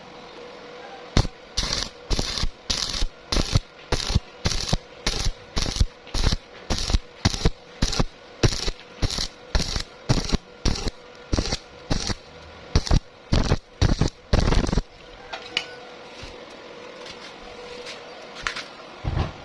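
Welding arc struck in a long run of short bursts, about two a second, each lasting a fraction of a second. This is pulsed stitch-welding to fill holes burned through thin iron by excessive amperage. The bursts stop about 15 seconds in, leaving low steady noise and a couple of faint clicks.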